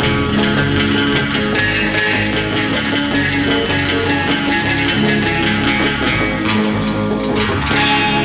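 Rock music led by guitar, with bass, playing steadily.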